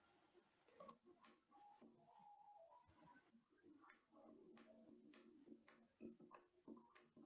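Faint clicking of a computer mouse and keyboard during CAD drafting: a quick cluster of three clicks just under a second in, then scattered soft clicks over quiet room tone.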